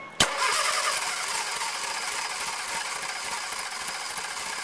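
1960 MGA's four-cylinder engine, freshly rebuilt, starting with a sharp click about a quarter second in and then running steadily on its first start in decades.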